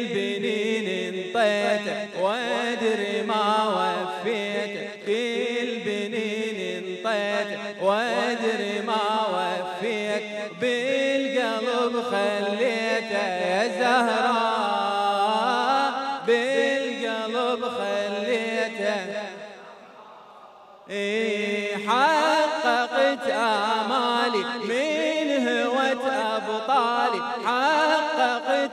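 A man chanting an Arabic Muharram lament (latmiya) into a microphone in a melismatic, sung style. The voice breaks off briefly about two-thirds of the way through, then resumes.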